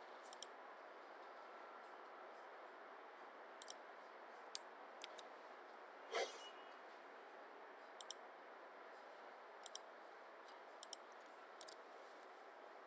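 Computer mouse clicking, a dozen or so sharp clicks, many in quick pairs, with a brief softer noise about six seconds in, over faint steady hiss.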